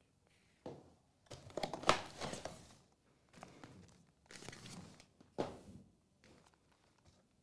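Trading card pack packaging being torn and crinkled open by hand, in several short crackling bursts, the loudest about two seconds in.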